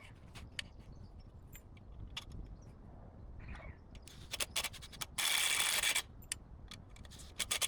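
Clicks and knocks of handling gear, then about five seconds in a cordless drill/driver runs for just under a second, driving a screw to fix the milling ladder to the log.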